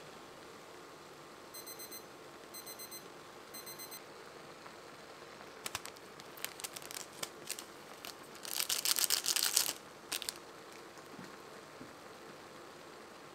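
Digital kitchen timer beeping in three short bursts of quick high beeps, about a second apart. Then a foil-laminate seasoning packet of coriander flakes is crinkled and torn open, with the loudest rip and rustle around nine seconds in.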